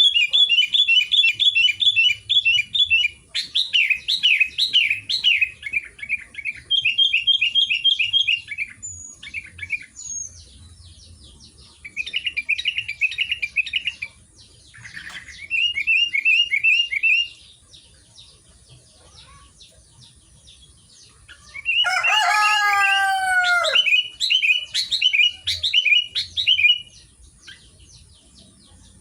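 Sooty-headed bulbul singing in repeated bouts of quick, high notes, each bout lasting two to three seconds with pauses between. About 22 seconds in, a louder, lower drawn-out call with a falling end sounds over it.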